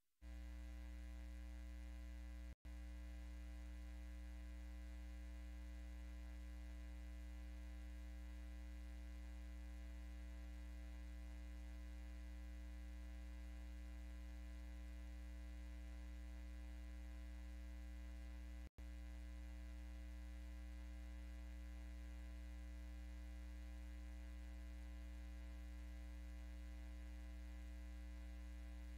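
Steady electrical mains hum, a low buzzing tone with a ladder of overtones, that switches on suddenly right at the start and drops out for an instant twice, about two and a half seconds in and again about nineteen seconds in.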